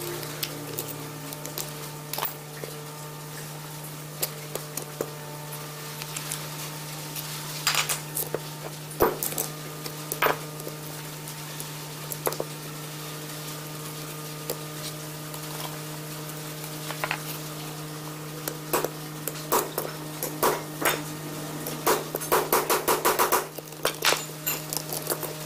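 Scattered metal clinks and knocks from the parts of an antique breast drill being handled and taken apart, over a steady hum. A quick rattling run of clicks comes near the end.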